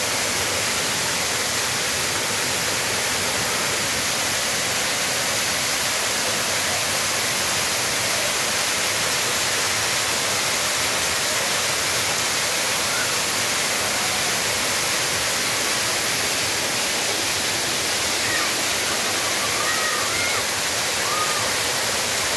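Water-curtain fountain pouring a sheet of water from an overhead ledge into a shallow pool, a loud steady rushing splash.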